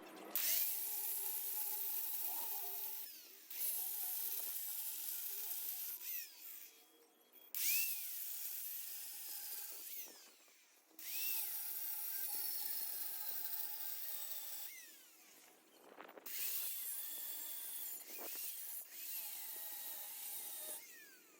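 A power tool cutting into the steel exhaust pipe in five runs of a few seconds each, with short pauses between them.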